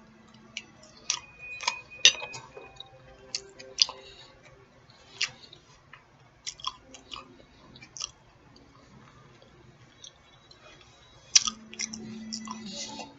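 Close-miked eating: wet chewing with many scattered mouth clicks and smacks. Near the end a loud smack is followed by a short, low held vocal sound.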